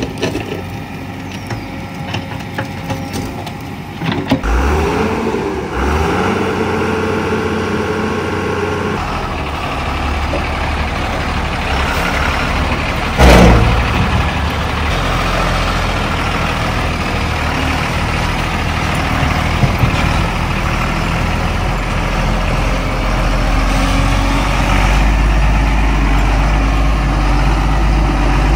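Heavy diesel vehicle engines running and idling, getting louder and deeper through the second half. About 13 seconds in there is one short, loud burst of noise, the loudest moment.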